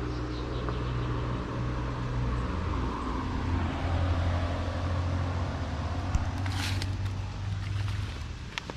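Motor vehicle engine drone, steady and low, swelling a little around the middle, with a short sharp rustle about two thirds of the way through.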